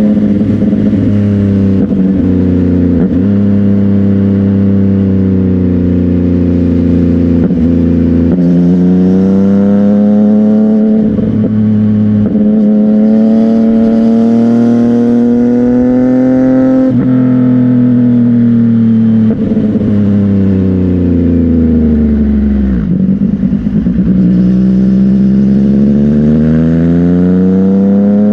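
CFMOTO 675NK's three-cylinder engine through a Burnout titanium exhaust while riding. The engine note climbs steadily and drops sharply several times, as with gear changes, and slowly winds down once before picking up again near the end.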